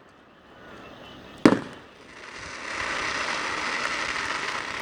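Fireworks: one shell bursting with a sharp bang about a second and a half in, then a long steady crackling hiss from about two seconds in.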